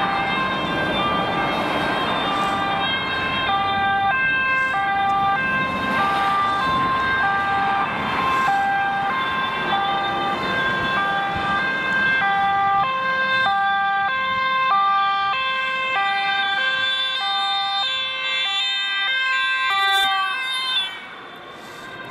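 Two-tone emergency-vehicle sirens sounding their alternating high-low notes over traffic noise. A second, lower-pitched two-tone siren joins about halfway through, and the sound cuts off abruptly near the end.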